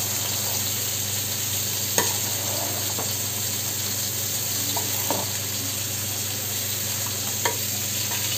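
Steel ladle stirring and lifting cooked biryani rice in an aluminium pot, with a few light clinks of the ladle against the pot, over a steady hiss.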